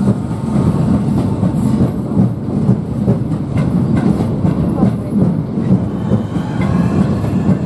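Networker electric multiple unit departing and rolling past, with its running gear and traction motors sounding and its wheels clattering over the rail joints.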